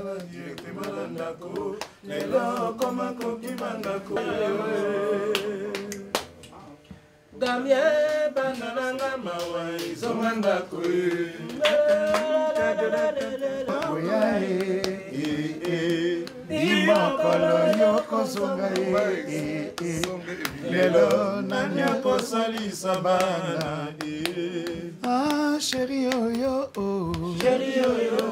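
Voices singing a song over music, with a steady low note held under the melody; the sound drops away briefly about seven seconds in.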